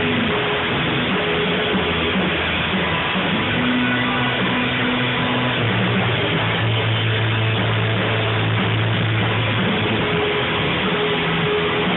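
Rock band playing a song, guitar-led, with long held low bass notes under a dense, steady wash of sound.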